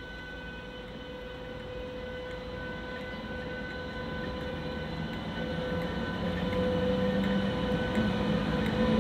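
A train approaching, growing steadily louder, with a steady hum and a low tone that rises slightly in pitch in the second half.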